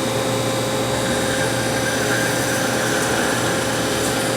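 Hardinge Conquest CNC lathe running through a machining cycle: a steady mechanical whir with a constant tone, even in level throughout.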